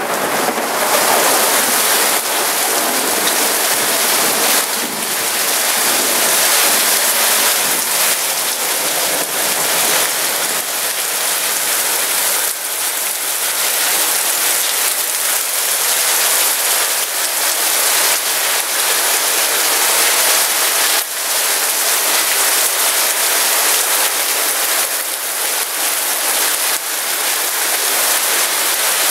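Heavy rain pouring down in a steady, dense hiss during a thunderstorm.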